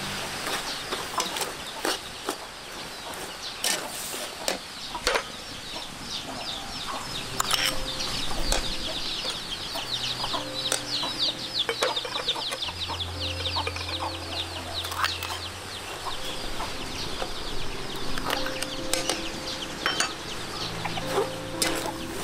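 Chickens clucking and chirping, with a dense run of rapid high chirps for several seconds in the middle. A metal ladle clinks and scrapes against a stainless steel pot as chopped offal is stirred.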